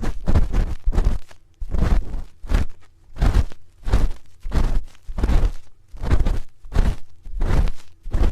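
Spoon scraping and rubbing against an ASMR microphone's ear in repeated strokes, about one or two a second.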